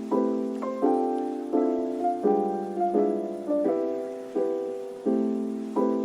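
Background music: a piano playing a slow run of chords, a new chord struck about every three-quarters of a second and left to fade.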